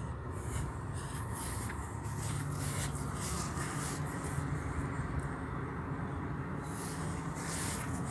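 Rustling, rubbing noise over a steady low rumble, like wind and handling on a handheld microphone, with no distinct event.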